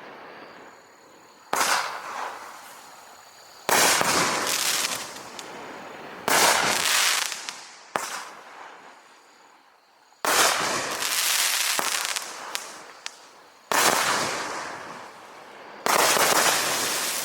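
Consumer aerial fireworks going off: about seven sharp bangs two to three seconds apart, each trailing off over a second or two.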